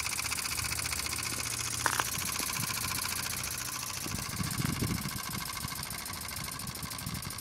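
Small homemade model steam engine running, a fast, even beat of steam pulses over a steady hiss, with one sharp click about two seconds in.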